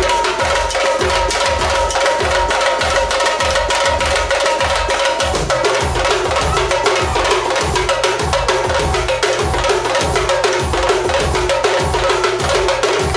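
Live dance music with a loud drum beating a steady rhythm, about two strong low beats a second with quick lighter strokes between, under a held melody line.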